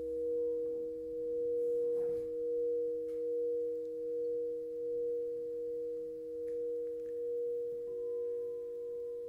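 Crystal Tones quartz crystal singing bowls ringing: the A-sharp ocean indium bowl holds a steady sustained tone over a second, lower bowl tone, the sound wavering slowly and evenly in loudness. About eight seconds in, another bowl, the F-sharp, joins with a new tone.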